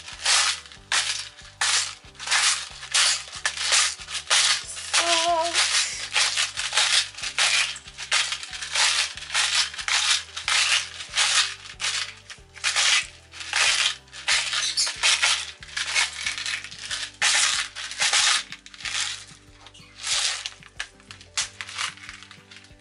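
Handheld salt grinder twisted over a bowl of flour, grinding in quick rasping crunches about two a second, stopping shortly before the end. Soft background music plays underneath.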